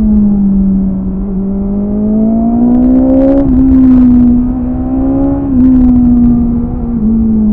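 BMW S1000RR inline-four engine on its stock exhaust, pulling hard while riding, its pitch climbing and then dropping sharply at gear changes about three seconds in, again after five seconds and once more near the end.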